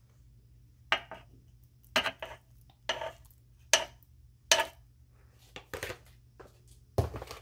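Sharp clinks and knocks of a utensil against a metal mini muffin pan, about one a second with short scrapes between, as thick muffin batter is scooped and dropped into the cups.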